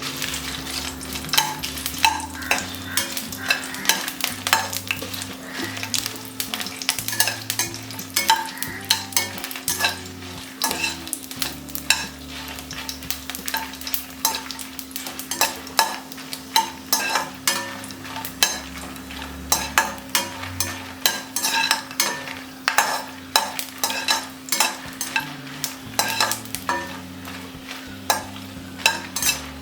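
Dried red chillies frying in sesame oil in a pan, sizzling, while a spoon stirs and scrapes against the pan in frequent sharp clicks.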